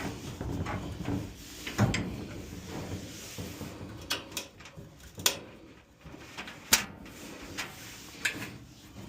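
Irregular sharp knocks and clicks, about seven of them, with a low rustle of handling in between: parts and tools being handled during dryer disassembly.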